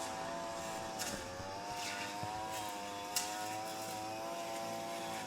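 Quadcopter drone flying, its propellers giving a steady whine of several tones. The pitch dips briefly about a second in and then settles back.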